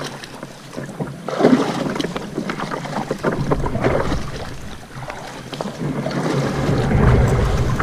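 Wind buffeting the microphone, with a low rumble that grows stronger over the last couple of seconds, over scattered knocks and clicks.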